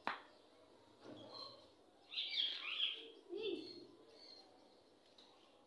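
Faint bird chirping, with a sharp click at the very start.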